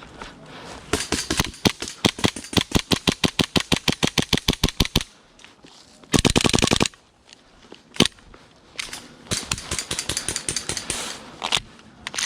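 Airsoft guns firing on full auto: a long string of rapid, evenly spaced shots for about four seconds, a very fast short burst about six seconds in, a single shot near eight seconds, then a fainter string of rapid shots.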